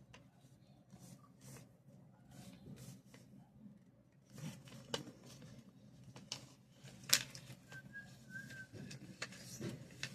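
A4 paper being handled and folded: scattered light crinkles, rustles and sharp creasing clicks, the loudest a crack about seven seconds in. About eight seconds in a faint, high whistle-like tone holds for about a second.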